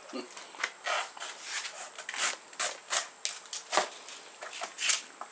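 Cabbage palm heart (swamp cabbage) being stripped by hand: a string of irregular dry rubbing and snapping strokes as the stiff, fibrous layers are peeled away.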